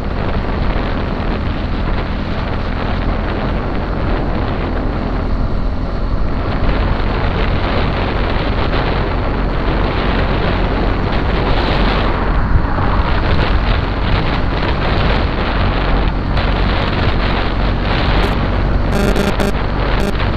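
Wind buffeting the microphone of a riding motorcyclist, with the motorcycle's engine running underneath as a steady low hum.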